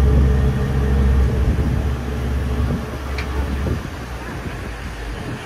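Ferry engine droning steadily over a rush of wind and water; the drone drops away about two-thirds of the way through, leaving the rushing noise.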